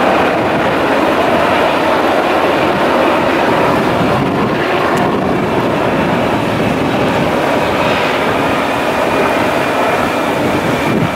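Military helicopters flying over in formation, with the steady, loud noise of their rotors and turbine engines.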